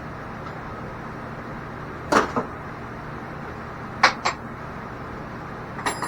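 Metal parts and tools being handled, giving sharp clinks and knocks in pairs about two seconds apart over a steady background hum. Near the end one knock rings briefly like struck metal.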